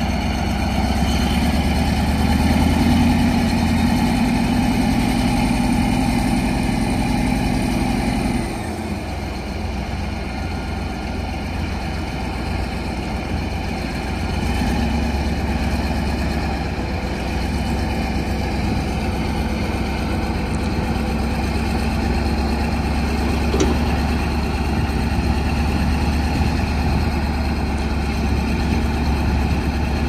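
Heavy diesel engines of a Caterpillar D11 bulldozer and a bogged excavator running under load as the dozer pulls the excavator out of the mud on straps. The engine sound drops about eight seconds in and builds again a few seconds later.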